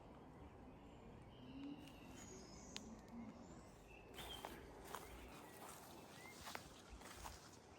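Quiet woodland: faint, scattered bird chirps with a few light footstep cracks in the undergrowth.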